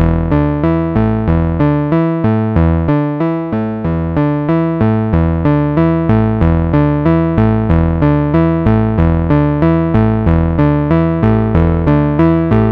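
Moog Subharmonicon analog synthesizer playing a sequenced pattern of short pulsing notes, about three a second, with subharmonic bass tones under the oscillators. The bass thins out about two seconds in and comes back a few seconds later as the subharmonic level knobs are turned.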